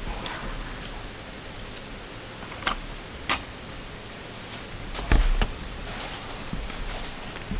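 Scattered sharp clicks and taps of laptop parts and tools being handled during disassembly, the loudest cluster about five seconds in, over a steady hiss.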